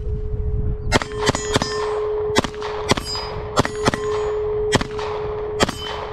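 About nine shots from a Canik SFX Rival 9mm pistol, starting about a second in and fired at an uneven pace, roughly every half second to a second, with a ringing clang from metal targets after several of them. A steady tone runs underneath.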